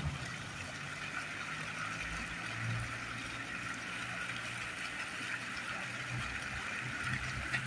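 Steady splashing of a small fountain's water jets, with a low hum underneath.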